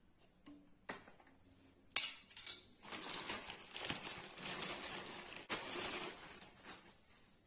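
A few sharp knocks and clicks of light sports gear being handled, the loudest about two seconds in, then plastic wrapping crinkling and rustling for several seconds as a packaged badminton racket is picked up.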